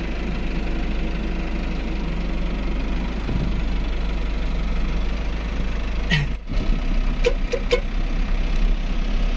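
Motorhome engine running, heard from inside the cab as the vehicle pulls away slowly; a steady low hum. About six seconds in the sound briefly dips, and a few short sharp clicks follow a second later.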